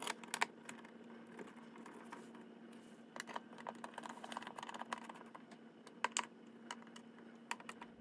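Hand screwdriver tightening the screws of an outlet cover plate: scattered small, irregular clicks and scrapes of the tip turning in the screw slots and against the plate. A faint steady hum runs underneath.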